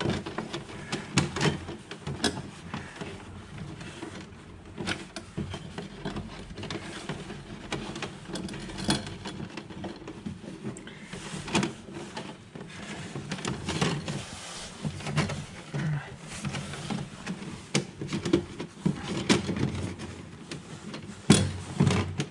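Irregular clicks, taps and scrapes of stiff electrical wires and hand tools being handled while a phase conductor is wired into a distribution board, with several sharper knocks, the loudest near the end.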